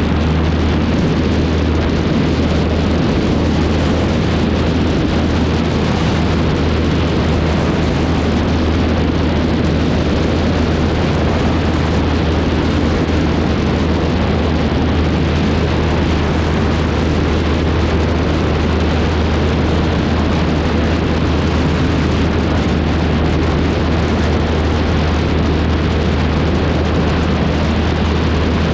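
Wind rushing hard over a wing-mounted camera on a Cessna 152 in flight, with the steady low drone of its engine and propeller underneath, unchanging throughout.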